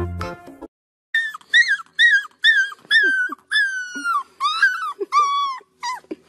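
Golden retriever puppy howling in a string of about a dozen short, high-pitched yips and whines, several sliding down in pitch, with one longer drawn-out howl about three seconds in. A snatch of music cuts off just before the howls start.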